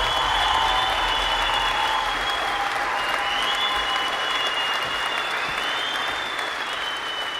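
Crowd applauding, with a few long, high steady tones over it. The clapping slowly fades out near the end.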